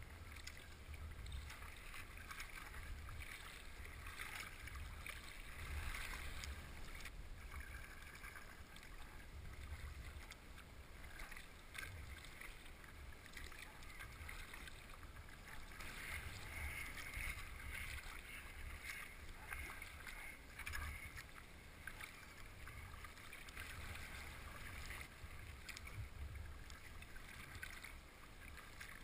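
Kayak paddle strokes in calm water: the blades dip, swish and drip in uneven surges every few seconds over a low, steady rumble.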